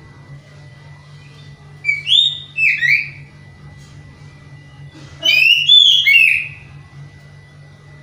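Caged Oriental magpie-robin (kacer) singing two short phrases of loud whistled notes gliding up and down, about two seconds in and again about five seconds in, over a steady low hum and a thin steady high tone. The keeper takes this song as that of a bird in song but short of breeding drive, its material still monotonous.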